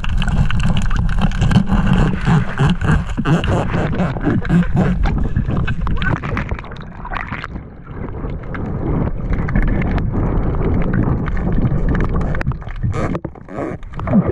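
Water sloshing and gurgling hard against the camera, with a heavy low rumble and many small clicks and pops.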